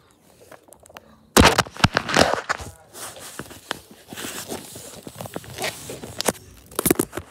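Handling noise close to the microphone: scuffing, rustling and irregular knocks as plush toys and hands are moved against it. The loudest knocks come about a second and a half in.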